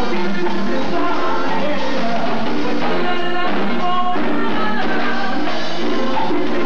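Latin band music playing at full level, a drum kit keeping a steady beat under the melody, with a voice singing.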